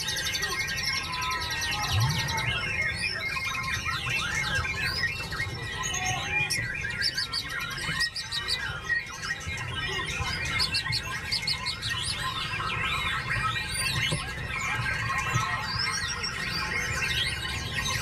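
White-rumped shama singing a fast, varied run of whistles, trills and chirps, overlapping with a dense chorus of other caged songbirds singing at once.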